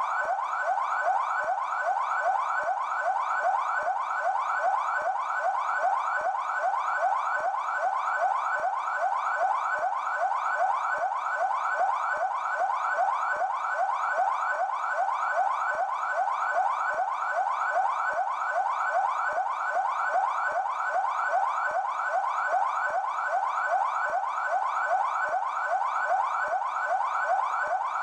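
São Paulo Military Police (PMESP) police siren on its yelp setting: a fast, unbroken run of rising sweeps, about two to three a second, at a steady level.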